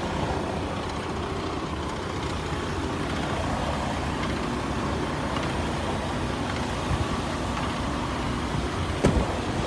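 Steady rumble of an idling truck engine with outdoor road noise, broken by a single sharp knock near the end.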